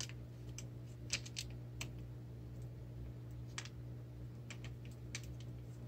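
Crinkly plastic packaging of a LEGO minifigure blind bag crackling in irregular small clicks as a child's fingers pick and pull at it, trying to tear it open, over a steady low hum.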